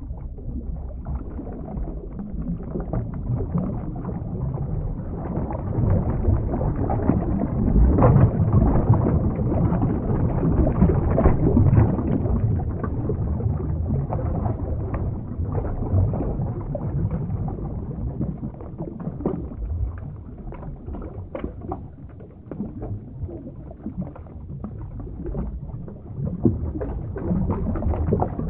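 Underwater water ambience: a continuous dull rush of moving water with many small bubbling crackles. It swells louder in the middle and eases off later on.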